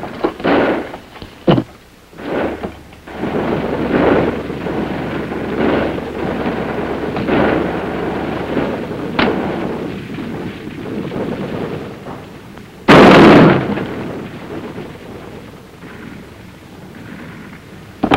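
Battle sounds: a few sharp shots, then rumbling explosions that swell and fade, and one much louder, sharp blast about 13 seconds in.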